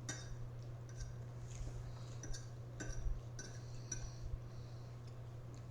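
Several light clinks and clicks of cutlery against a dish during a meal, irregular and short, over a steady low electrical hum.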